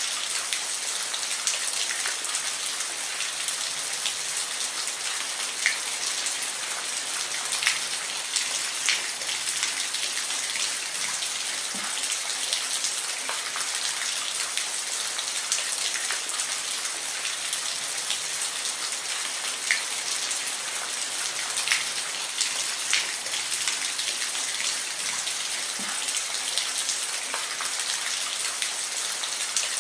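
Steady rain falling, an even hiss with scattered individual drops ticking sharply on a surface.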